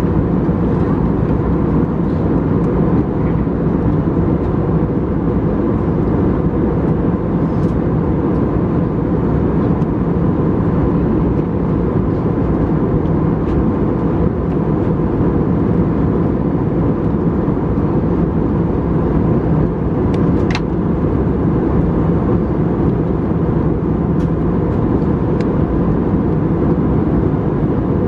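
Steady in-flight cabin noise inside an Airbus A320: a constant deep rush of airflow and engines at an even level, with a faint steady whine above it.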